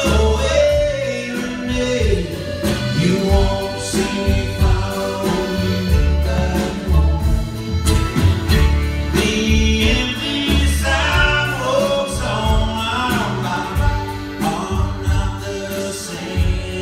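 Live band playing: acoustic guitar, mandolin, upright bass and drums, with sung vocals over them.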